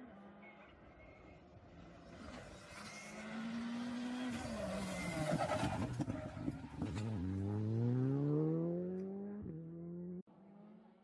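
Rally car engine coming in at speed, dropping in pitch as it brakes for the corner with a flurry of crackles, then revving hard and climbing through the gears as it accelerates away. The sound breaks off abruptly near the end.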